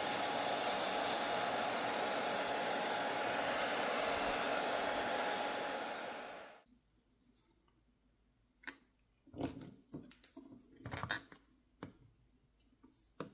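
Hair dryer blowing steadily with a faint steady whine, heating a phone's glass backplate to soften the adhesive underneath; it cuts off about six and a half seconds in. After a pause come scattered light clicks and knocks as a suction cup is handled and set on the back glass.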